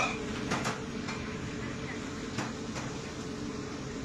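Commercial restaurant kitchen with the extraction hood and wok stations running steadily. Several sharp clanks of metal utensils against woks and pans come at scattered moments.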